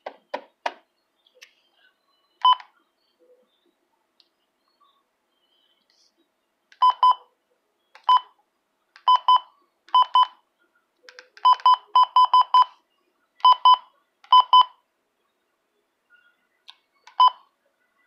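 Midland weather alert radio beeping each time one of its front buttons is pressed: short, identical high beeps, mostly in quick pairs and at uneven gaps, with a fast run of five or so a little past the middle.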